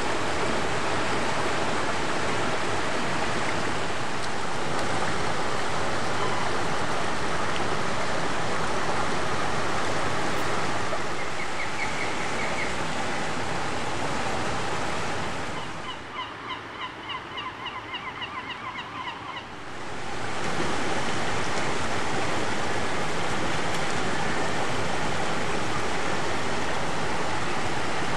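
Water rushing steadily down the stone steps of a fish ladder. For about four seconds past the middle the rushing drops away and a bird calls in a rapid run of short high chirps, about six a second.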